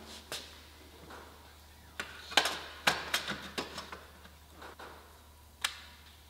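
Sheet-metal repair panel being held and shifted against a car body's wheel-arch panel: a scattering of sharp metallic taps and clicks. The knocks cluster between about two and four seconds in, with one more near the end.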